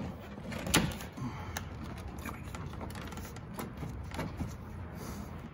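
Light plastic clicks and knocks as a Ford oval grille emblem is pushed and worked into its slot in the grille, with one sharper click about three-quarters of a second in.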